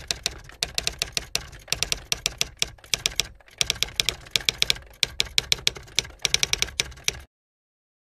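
Typewriter sound effect: quick, uneven runs of sharp key clicks, stopping about seven seconds in.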